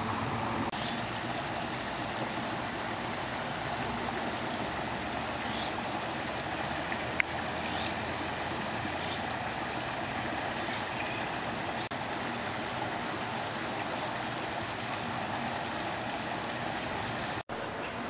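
Steady rush of running water, with faint, scattered high chirps of small aviary birds over it and one sharp chip about seven seconds in.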